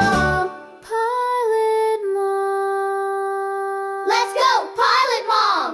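End of an outro song: the backing music stops about half a second in, then a single voice holds one long sung note for about three seconds, followed by a few short sung or vocal phrases before it cuts off.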